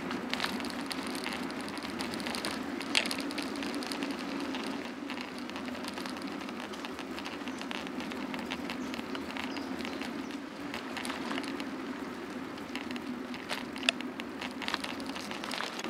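Bicycle rolling along an asphalt path: a steady tyre hum with many small crackles and ticks, and a sharper click about three seconds in and another near the end.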